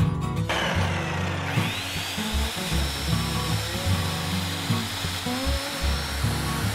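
Corded circular saw cutting a rough-sawn lumber rafter board, its motor whine rising about a second and a half in and then holding steady, over background music.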